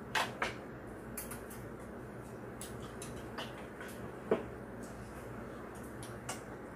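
A spoon and chopsticks clicking against rice bowls during a meal: about six short, sharp clicks, the loudest about four seconds in, over a steady low hum.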